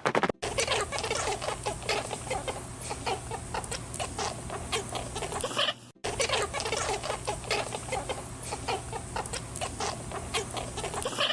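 Domestic chickens clucking, many short overlapping clucks from a flock of hens, over a steady low hum, with a brief cut about six seconds in.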